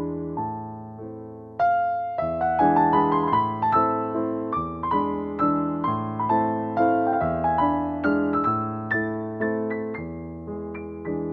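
Background piano music, a gentle run of single notes and chords, each note struck and fading.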